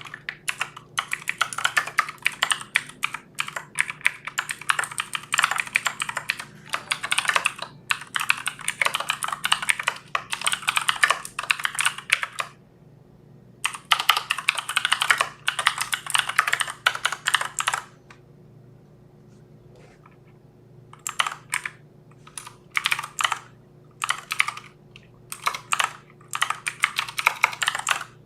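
Typing on a computer keyboard: long, fast runs of keystrokes that pause briefly about twelve seconds in and for a few seconds after about eighteen seconds, then resume in shorter, scattered spells.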